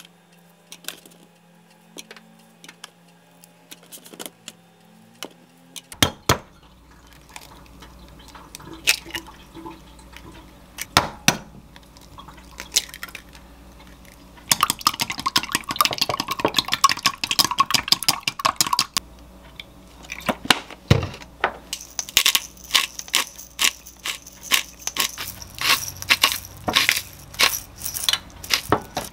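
Kitchen prep sounds: scattered clicks and knocks as cherry tomatoes, a metal mesh strainer and a glass cup are handled, then eggs cracked into the glass cup. In the last seven seconds or so, a hand pepper grinder gives a fast, dense crackle as it grinds over the bowl.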